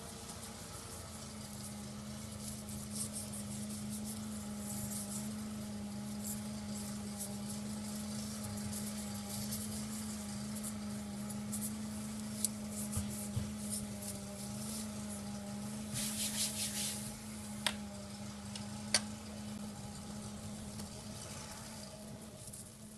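A steady low hum, with light clicks from small plastic parts being handled and a brief hiss about sixteen seconds in.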